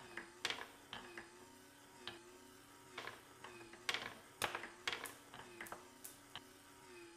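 Marbles clicking and rattling as they run down a wooden track into a layered wooden funnel and drop through its holes, with irregular sharp clicks one to three times a second. Under them, the faint hum of the machine's motor-driven corkscrew lift wavers about once a second.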